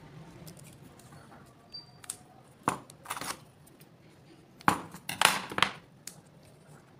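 Adhesive tape pulled off the roll and cut with scissors: sharp clicks and short ripping noises in two bunches, one about two and a half seconds in and a louder one about five seconds in.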